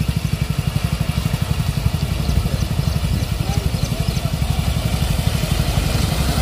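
Motorcycle engine idling with a steady, rapid low putter.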